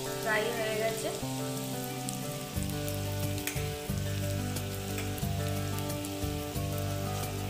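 Chicken momos frying in hot oil in a pan: a steady sizzle flecked with small crackles, over background music.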